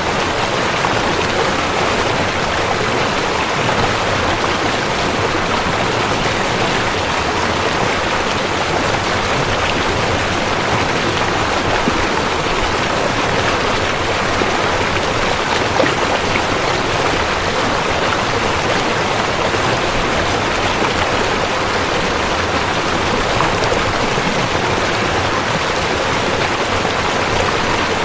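River water rushing and babbling steadily.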